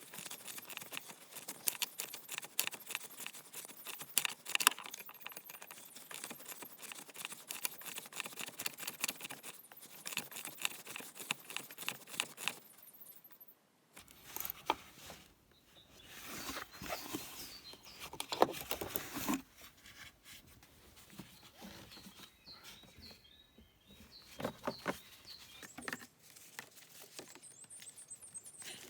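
Hand tools and small metal parts clinking and rattling in a car's engine bay during fuel hose work, a dense run of irregular sharp ticks. It goes briefly quiet about halfway through, then carries on with scattered clicks and handling noises.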